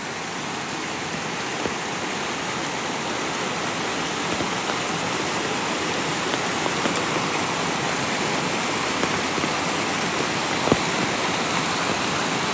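Steady rush of a waterfall mixed with falling rain, growing a little louder over the first few seconds. One light tap near the end.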